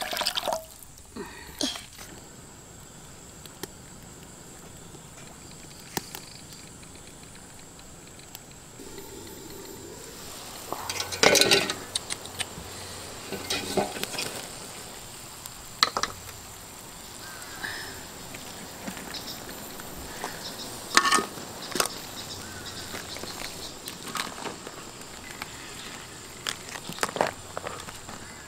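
Liquid heating in a wok over a wood fire with a steady hiss, broken by scattered knocks and splashes as ingredients go into the pan, the loudest about eleven seconds in.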